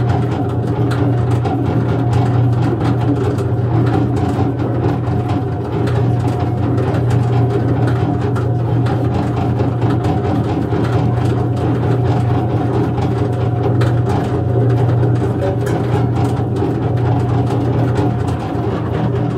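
Steady low mechanical hum of an electric machine running, unchanging throughout.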